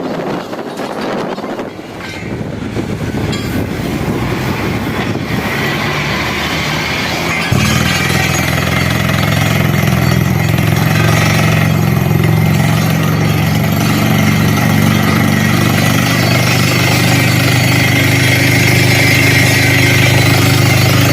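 Borewell drilling rig running with rough mechanical noise. About seven and a half seconds in it jumps suddenly louder into a steady deep engine hum with a high whine over it.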